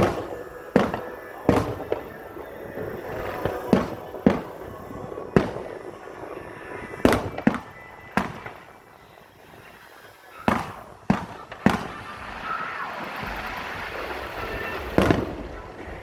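Fireworks bursting overhead: about a dozen sharp bangs at irregular intervals, with a short lull near the middle.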